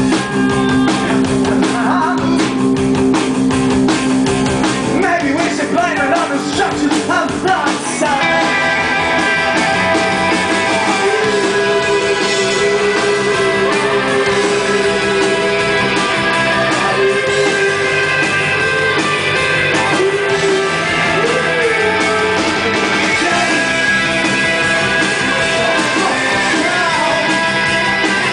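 Rock band playing live: electric guitar, bass and drums, with a male voice singing. About eight seconds in the music shifts into denser, held chords.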